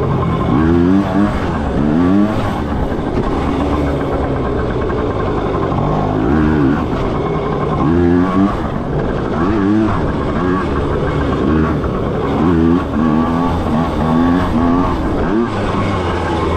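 Small dirt bike engine revving as it is ridden, its pitch rising in short repeated sweeps as the throttle is opened and eased off.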